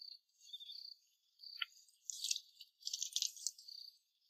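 Faint insects chirping: short high chirps repeating about once a second, with louder fast trills in the second half.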